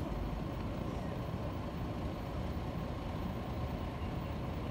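Steady low rumble of outdoor background noise on an open field, even in level throughout.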